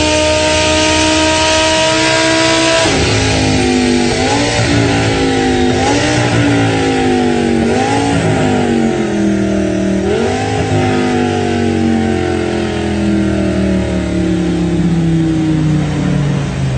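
Formula One V10 engine at high revs, its pitch climbing slowly, then cut back sharply about three seconds in. Four short blips of revs follow about every two seconds, then the pitch sinks slowly.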